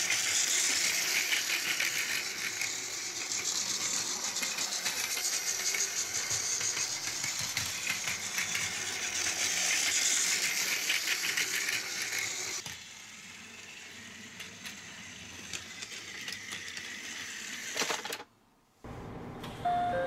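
Battery-powered Plarail toy train running on plastic track: a dense, rapid clicking and rattling of its motor gears and wheels over the track joints. It is loudest as the train passes close about ten seconds in and drops off sharply after about twelve seconds. A few short electronic tones come right at the end.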